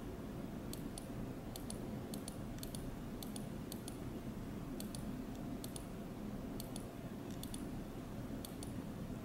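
Computer pointer button clicking in quick press-and-release pairs, about once a second and irregularly, over a steady low room hum.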